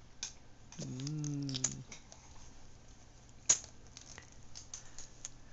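Small wet clicks and lip smacks from a baby eating with his fingers in his mouth, with one sharper click about three and a half seconds in. A person hums a short "mm" about a second in.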